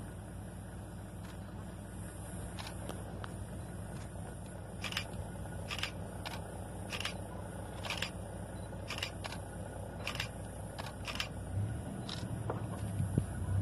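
Safari vehicle engine idling with a low, steady rumble that grows louder near the end, with a dozen or so short sharp clicks scattered throughout.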